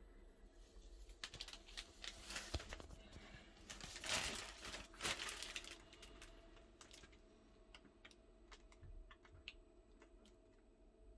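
Worcester gas boiler knocking while running: irregular taps and clicks, thick in the first half and sparser after, over a steady hum.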